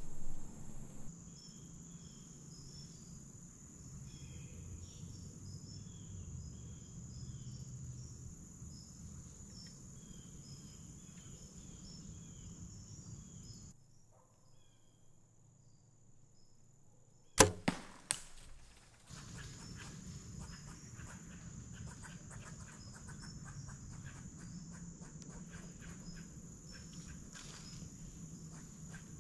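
Shot from a Mathews Phase 4 compound bow: one sharp, loud crack a little past halfway, with a smaller crack just after it. Steady crickets and insects chirp before and after.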